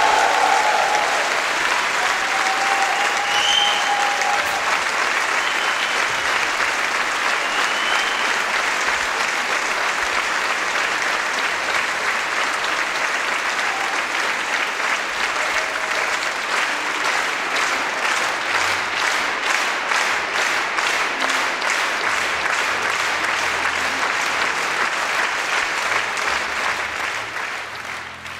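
Large concert-hall audience applauding after a song. About halfway through, the clapping settles into a steady rhythmic beat in unison, and near the end it fades away.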